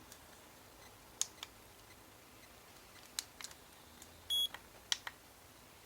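Sanitas SFT 75 digital thermometer's plastic buttons clicking several times, with one short high electronic beep from the thermometer about four seconds in.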